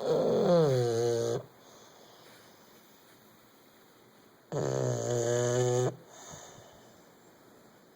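English bulldog snoring in its sleep: two long snores, one at the start and one about four and a half seconds in, each lasting over a second. The first falls in pitch as it goes.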